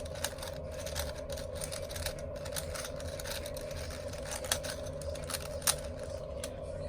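A 4x4 Rubik's cube being turned by hand: a run of light plastic clicks and clacks as its layers are twisted, with two sharper clacks in the second half, over a steady background hum.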